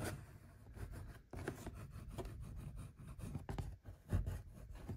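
A smooth, bullet-shaped pen rubbed in irregular short strokes along copper tape on slot-car track rails. It is burnishing out the tape's wrinkles so the tape adheres to the metal rails.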